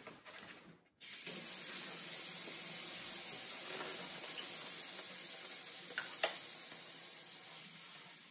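Kitchen faucet turned on about a second in, its stream running steadily over cherry tomatoes being rinsed in their plastic container. A couple of light knocks sound a little past halfway.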